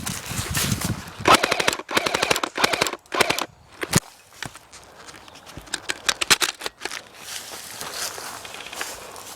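Airsoft electric guns firing several short full-auto bursts of rapid clicking shots, with a single sharp crack about four seconds in.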